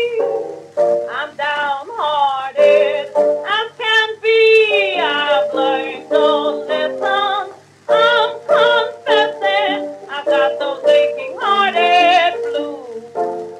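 1922 acoustic-era blues recording played from an OKeh 78 rpm shellac disc: a woman sings a blues vocal over piano accompaniment, with little sound above the middle-high range.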